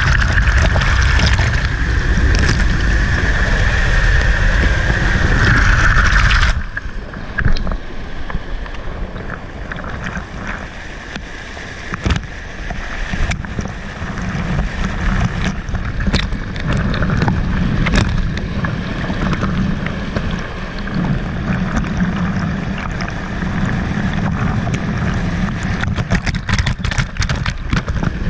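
Water pouring over a weir onto a GoPro: a loud, steady rush of falling water right on the camera, with scattered sharp ticks. About six seconds in it drops suddenly to a lower, uneven splashing of the cascade around bathers.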